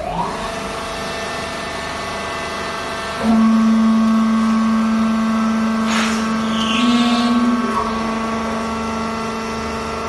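Vertical hydraulic baler's electric motor and hydraulic pump running with a steady hum. It gets louder with a strong low tone about three seconds in and shifts briefly around seven seconds.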